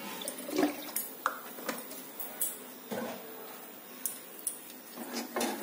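Cooking oil poured from a plastic bottle into a non-stick frying pan, with scattered light knocks and clinks of the pan and kitchenware, some ringing briefly.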